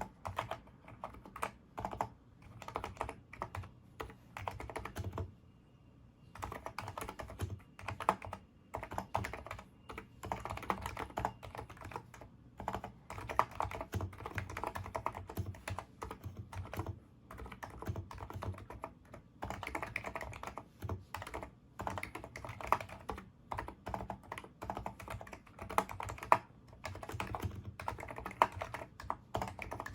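Typing on a NIZ Micro82 keyboard with 35 g electrostatic capacitive switches: a quick, uneven run of keystrokes, broken by a pause of about a second some five seconds in.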